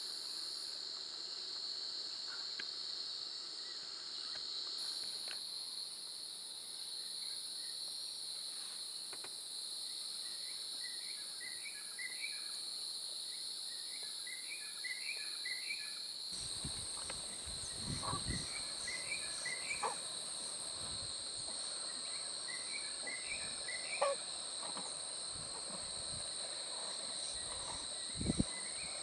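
Steady high-pitched insect chorus, with a bird repeating a short chirping phrase every second or two. About halfway through, irregular low thumps and rumbles join in.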